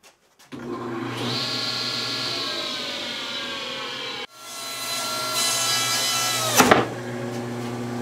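Table saw running, its motor note sagging slowly in pitch; after a break it runs on again, with one short, loud crack about two-thirds of the way through.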